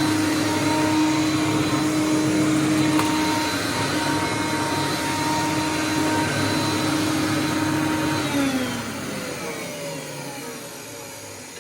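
Hoover Conquest upright vacuum running at full speed with a steady whine. About eight seconds in it is switched off, and the motor and fan wind down with a falling pitch.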